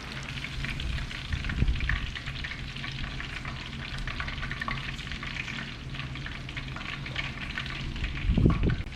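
Fish fillets frying in hot cooking oil, a steady sizzle full of fine crackles, over a steady low hum, with a louder low bump near the end.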